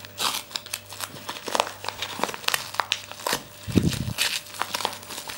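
Yellow mailer envelope being pulled and torn open by hand, its paper crinkling and crackling in short irregular snaps. There is one dull low thump a little past the middle.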